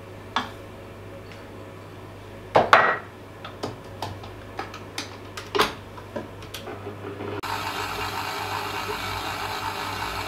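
A few knocks and clatters of a small bowl, spoon and mixer parts against a stand mixer's steel bowl, then about seven seconds in the stand mixer's motor starts and runs steadily, its flat beater mixing shortening, flour and sugar.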